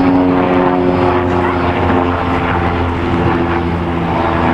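Helicopter flying overhead: a loud, steady engine and rotor hum whose pitch slowly falls.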